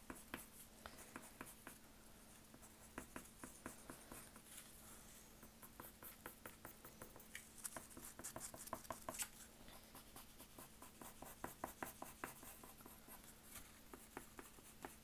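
Faint scratching of a brown colored pencil on drawing paper: short, quick shading strokes that come in runs.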